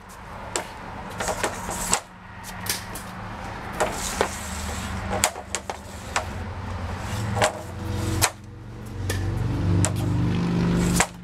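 Hockey stick blade clacking against pucks and a plastic shooting board as pucks are stickhandled and shot, a string of sharp clacks at uneven intervals. A vehicle's engine hum rises underneath in the second half.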